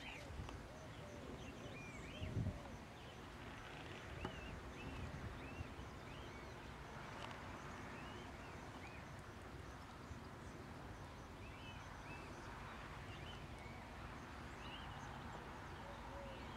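Quiet open-air background with short, arching bird chirps repeating irregularly every second or so, and a brief low thump about two seconds in.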